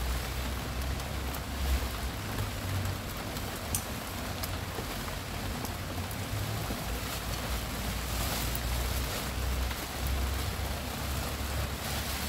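Steady rain falling, with scattered sharp taps of drops and a low rumble underneath from the wind.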